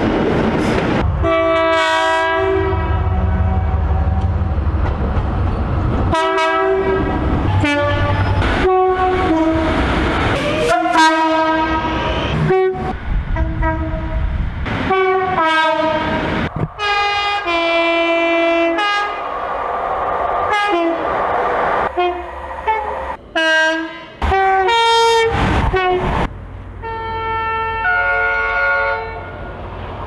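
A run of British train horns, one short clip after another with abrupt cuts between them, many sounding two-tone high-then-low blasts. A low diesel engine rumble sits under some of the blasts.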